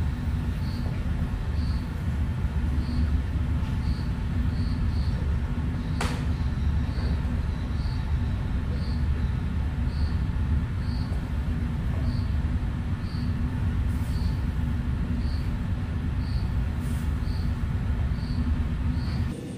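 A steady low mechanical rumble, with a faint high chirp repeating about once a second and one sharp click about six seconds in.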